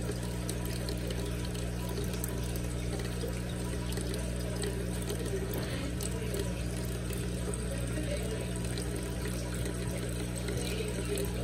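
Aquarium filter running: a steady flow of moving water over a low, even motor hum.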